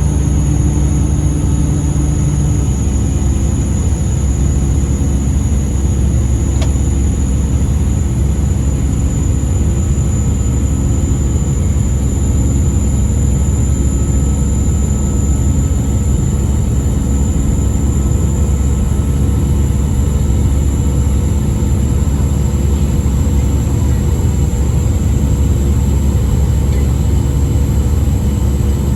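Airbus A319 cabin noise in flight: a steady, loud low rumble of engines and airflow, with thin steady high-pitched tones above it. A lower hum in the mix drops out about two and a half seconds in.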